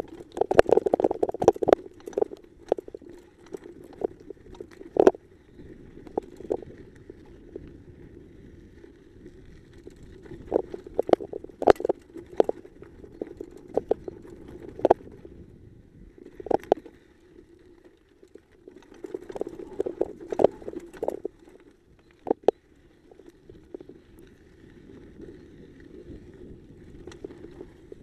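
Mountain bike riding down a rocky dirt trail, heard from a camera on the bike: a continuous rumble from the tyres and frame over loose stones, with irregular sharp knocks and rattles as the wheels hit rocks. The knocks are busiest near the start and come in several bursts later.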